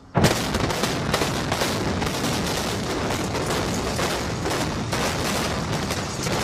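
Explosive demolition charges firing in rapid sequence: a sudden start a moment in, then a dense string of sharp cracks and bangs, one on top of another.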